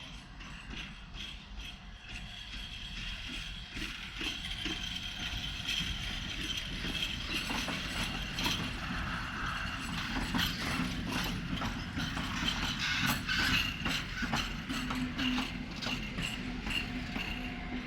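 ET22 electric locomotive running light, its wheels clattering in a rapid run of clicks over rail joints and points, getting louder as it passes, with a steady hum beneath.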